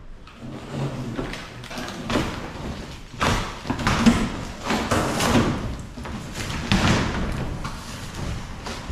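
Large cardboard motorcycle shipping box being cut and pulled open: repeated rasping, scraping swishes of cardboard, with dull thuds as the panels fold back, growing louder about a third of the way in.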